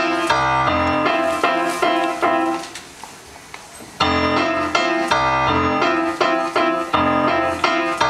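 Piano playing a song's introduction: rhythmic repeated chords over a bass line, breaking off to a quieter moment about three seconds in, then starting up again.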